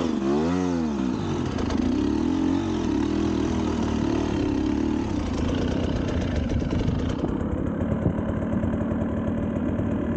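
Motorcycle engine blipped once in the first second, its pitch rising and dropping quickly, then running with a wavering pitch for a few seconds before settling to a steady idle.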